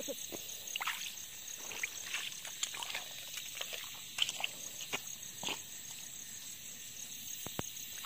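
Steady high pulsing trill of night insects, with scattered small splashes and rustles of water and wet grass being disturbed.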